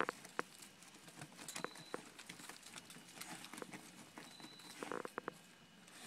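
A dog digging in dirt with its paws: irregular scraping and scattered clicks, with a short, louder noisy burst from the dog a little under five seconds in.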